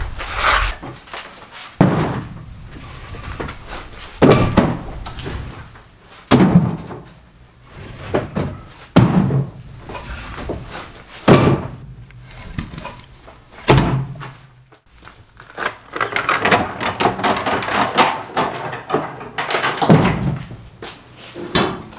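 Split firewood pieces dropped one at a time into a plastic yard cart, a series of heavy wooden thunks a couple of seconds apart. Near the end comes a stretch of steady rolling noise as the loaded cart is wheeled across the concrete floor.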